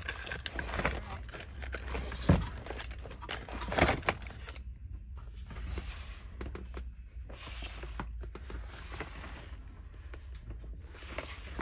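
Clear plastic storage drawers being pulled open and rummaged through, with crinkling of bagged and blister-packed parts and a couple of sharp plastic knocks in the first four seconds.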